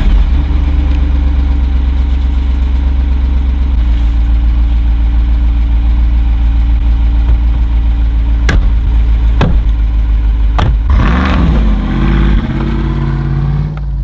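Jeep Wrangler engine idling, loud and steady, with three sharp knocks around the middle and the engine note rising and falling briefly near the end.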